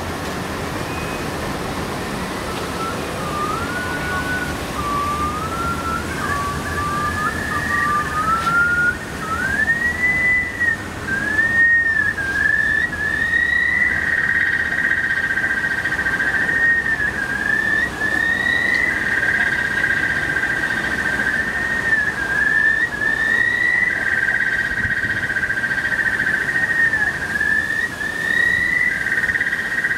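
Electronic sound art from the speakers of The Morning Line pavilion: whistle-like tones sliding up and down. About halfway in they settle into a high held tone, with a second tone just beneath it and repeated swooping dips.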